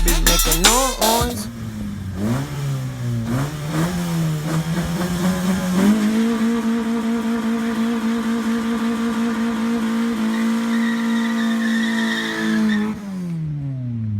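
Car engine with a loud, broken exhaust (resonator snapped off the pipe), likely the 2008 Honda Fit's four-cylinder. It revs up and down through the gears, holds a steady high pitch for several seconds, then winds down near the end. The tail of hip-hop music is heard in the first second.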